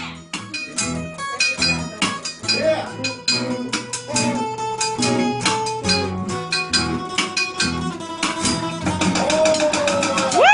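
Acoustic guitar strummed in a steady rhythm with a singer holding sung notes; near the end a voice slides up into a loud held note.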